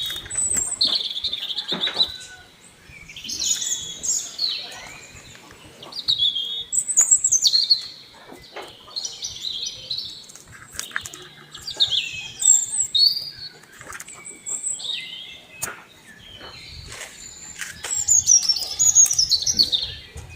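A songbird chirping and tweeting in quick, rapid phrases that slide up and down, again and again, with scattered sharp clicks and taps in between.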